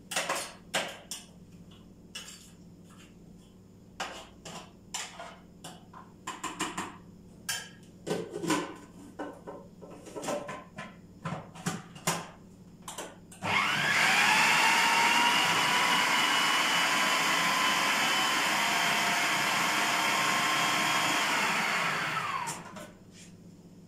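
Scattered clicks and knocks from handling the blender jar, then an electric blender motor grinding soaked fava beans for ta'ameya paste. It spins up with a rising whine, runs loud and steady for about nine seconds, and winds down near the end.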